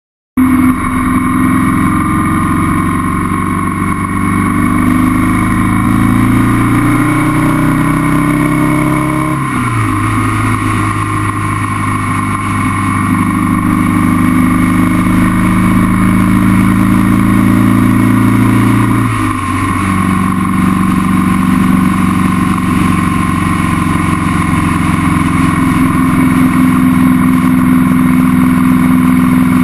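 Motorcycle engine running at road speed, heard from the bike over wind noise. The engine note climbs and then drops in pitch twice, about nine seconds in and again near twenty seconds in.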